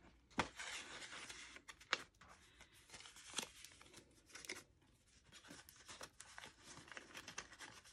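Faint rustling and crinkling of paper banknotes and a paper envelope being handled, with scattered small taps and clicks.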